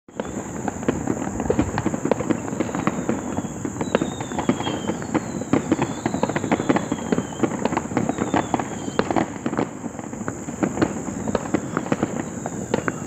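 Tết fireworks popping and crackling densely and without pause, with a few thin falling whistles.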